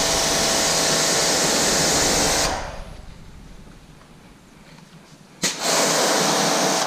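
Kranzle 1122TST electric pressure washer spraying water through a 25-degree nozzle: a steady hiss of spray with the pump motor running beneath it. The spray stops about two and a half seconds in and starts again suddenly near the end for a second burst.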